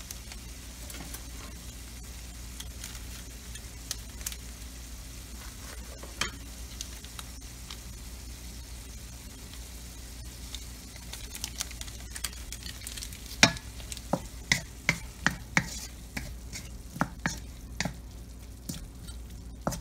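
Ground pork sizzling in a wok, with a steady low hum underneath. From about two-thirds of the way in, a wooden spatula stirs the meat, scraping and knocking against the pan two or three times a second.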